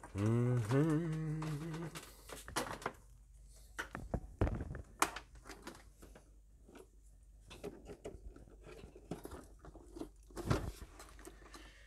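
A person hums a short wavering note at the start. Then come scattered light knocks and clicks as an LCD monitor is handled and moved on a workbench.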